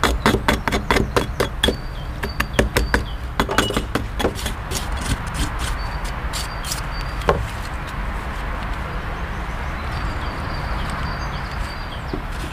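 A hand scraper knocking and scraping crusty rust off an iron blade after electrolysis: quick sharp strokes, three or four a second, for the first few seconds, then thinning out, with one sharp knock about seven seconds in. A steadier scratchy hiss follows.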